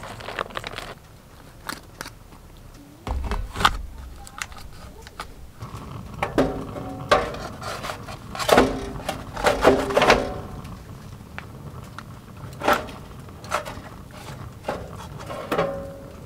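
Metal cookware and utensils clinking and knocking at irregular intervals, some strikes ringing briefly.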